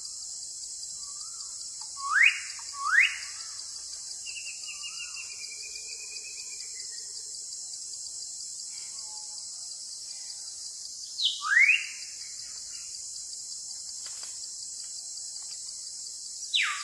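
Tropical forest ambience: a steady high insect hiss, with a bird giving sharp rising whistled calls in pairs, twice in the first few seconds and again past the middle.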